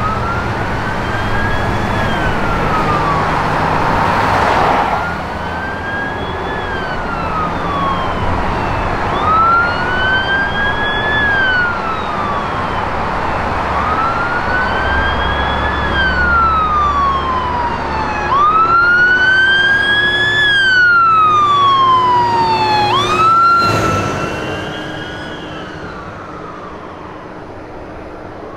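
Fire truck siren wailing, its pitch sweeping slowly up and down about every four to five seconds and growing louder as the truck approaches. About 23 seconds in the tone changes abruptly, then the sound grows fainter.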